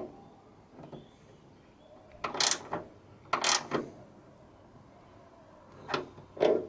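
A hand tool working at a bonnet gas strut's mounting bracket under the raised bonnet makes short mechanical rasps and clicks. There is a click at the start, two rasps about two and three and a half seconds in, and two more near the end.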